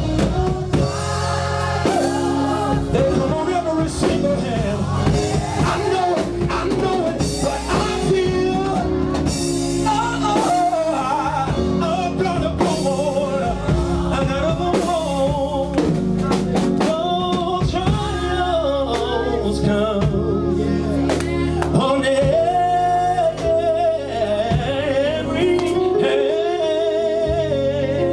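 Male gospel singer singing into a microphone, his voice bending and wavering through long held notes, over live band accompaniment with drum kit and sustained chords.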